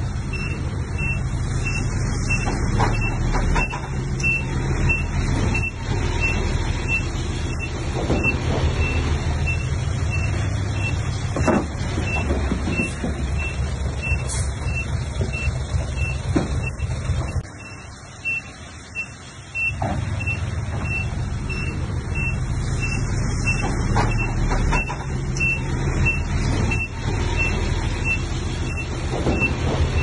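Bulldozer's diesel engine running under load, with a reversing alarm beeping steadily about twice a second. A few sharp metallic knocks stand out, and the engine drops off for about two seconds just past the middle.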